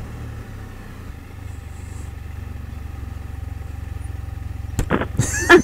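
Can-Am Spyder RT's Rotax 1330 ACE three-cylinder engine running low and steady at slow speed, with a sharp click near the end.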